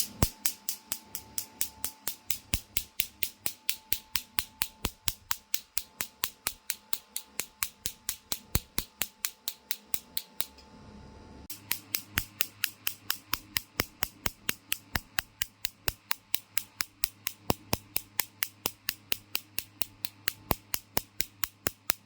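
A machine pulsing with sharp, evenly spaced clicks, about three a second. The clicks stop briefly about ten seconds in, then resume at the same pace.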